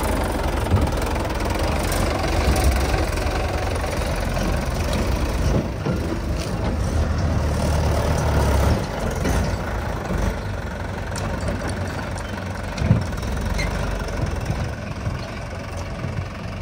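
Diesel tractor engine running with a steady low rumble that eases a little about nine seconds in.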